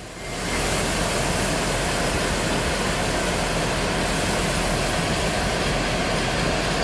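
Paddy rice pouring in a steady rushing stream off the end of a running rubber belt conveyor, with the conveyor's drive humming underneath. It comes up over the first half second and then holds even.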